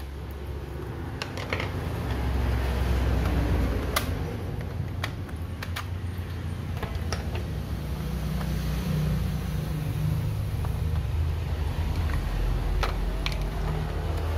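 Sharp clicks and light knocks of a laptop's plastic case being opened: the battery is released and pulled from its bay, then a screwdriver works the screws of the bottom cover. Underneath runs a steady low rumble from an unseen motor or traffic, which grows louder about two seconds in.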